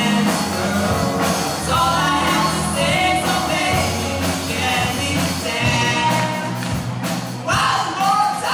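A teenage rock band playing live: a lead singer over electric guitars, a drum kit and keyboard.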